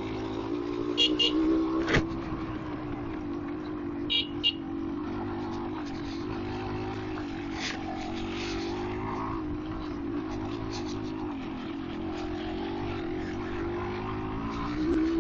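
Yamaha DT200R's two-stroke single-cylinder engine running at steady moderate revs under way, its pitch wavering gently with the throttle. A few short sharp knocks, the clearest about two seconds in.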